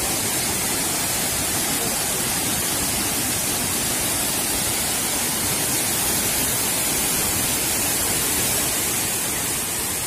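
Waterfall pouring down a rock face into its plunge pool: a steady rush of falling water, easing off slightly near the end.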